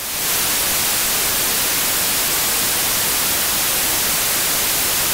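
Television static: a steady, loud white-noise hiss like a detuned analogue TV, swelling up in the first moment and then holding even. It is used as a break bumper, signalling a pause in the programme.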